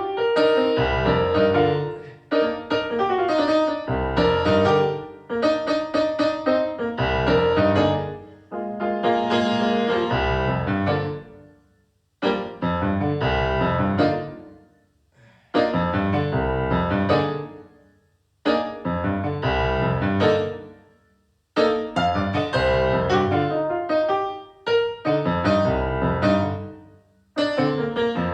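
Instrumental music led by piano or electric piano, with a deep bass under the chords. It comes in short phrases, each starting sharply and then fading or breaking off.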